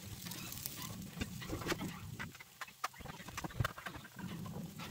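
Kitchen handling noises: scattered light clicks and taps of a wooden spoon and a glass mixing bowl, and the crinkle of plastic wrap being pulled over the bowl.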